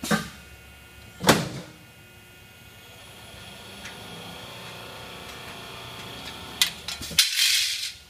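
PROFAB Feedpro slip-and-drive rollformer cycling: two sharp metal clanks, then the machine running steadily with a high whine for about five seconds as coil steel feeds through the forming rolls, then a click and a loud, hissing clank near the end.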